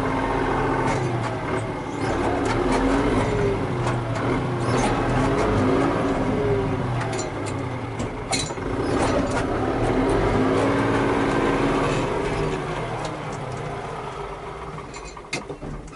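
Tractor diesel engine running, its pitch rising and falling several times as it is throttled up and down, with scattered clanks and knocks of metal. It grows quieter over the last few seconds.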